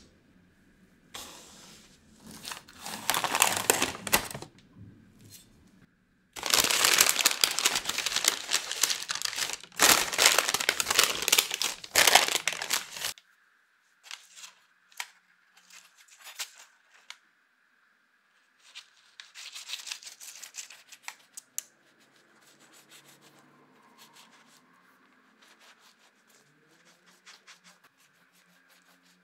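Baking parchment paper rustling and crinkling as it is handled and pulled away from a freshly baked sponge cake. It is loudest in two long stretches in the first half, then turns to softer, scattered rustles and small taps.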